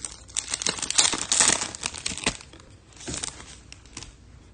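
Crinkling and rustling of a foil trading-card pack wrapper in a quick run of crackles over the first two seconds or so, then a few fainter rustles about three seconds in.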